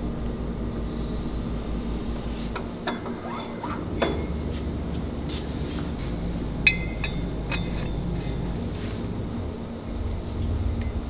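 Light metal clinks and knocks from tongs and gloved hands handling a metal 3D-printing build plate of printed pen barrels. The sharpest, ringing clink comes about two-thirds of the way through, over a steady low machine hum.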